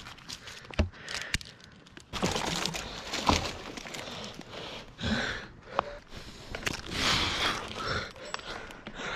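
Irregular rustling and crunching with a few sharp knocks, the loudest about 0.8 s and 3.3 s in.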